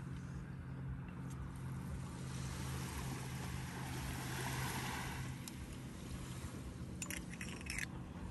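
A steady low engine-like hum over a haze of wind, with a brief rattle of clicks about seven seconds in.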